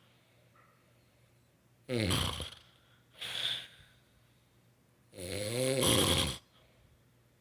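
A woman snoring: two long snores about three seconds apart, with a shorter breathy breath between them.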